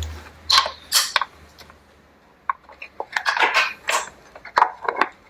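Metal tools and parts clinking and knocking in irregular light strikes, as when working on a small outboard engine. A low hum fades out about a second in.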